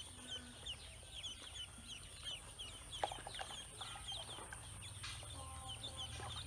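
Ducklings peeping: a continuous run of short, high chirps, several a second, with a single sharp click about three seconds in.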